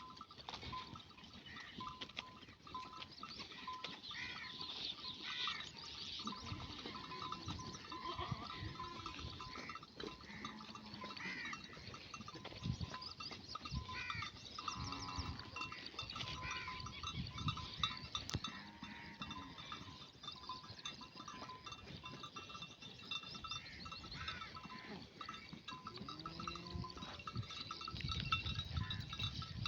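A flock of fat-tailed dumba sheep bleating, with many short calls repeating and overlapping throughout, some high-pitched and some low.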